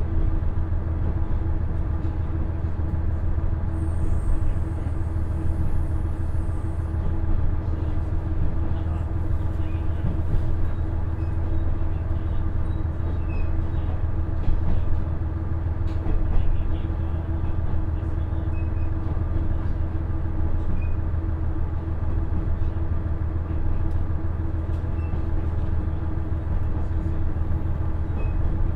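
Inside a KiHa 110-series diesel railcar with a Cummins engine, on the move: a steady low engine drone mixed with the rumble of wheels on rail, with a couple of small knocks from the running gear in the middle.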